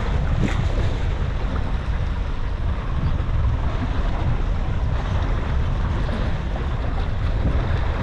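Wind buffeting the microphone with a steady low rumble, over the wash of choppy sea against a small boat's hull.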